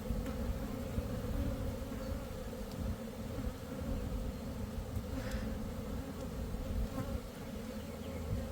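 Many honeybees buzzing steadily around a hive, a continuous hum of the freshly hived swarm.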